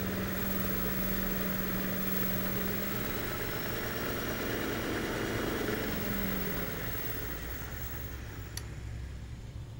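36-volt golf cart motor spinning a Geo Metro automatic transmission through a homemade drive adapter: a steady whirring hum with some vibration. About six to seven seconds in the whine dips slightly in pitch and fades away.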